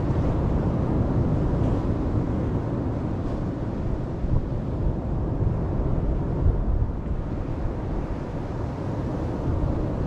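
Atlantic surf breaking along a sandy beach, a steady low rush of waves, with wind buffeting the microphone.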